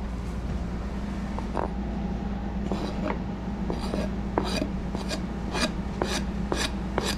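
Chef's knife blade scraping chopped cilantro across a plastic cutting board into a bowl: a series of short rasping strokes, coming faster, about two a second, in the second half.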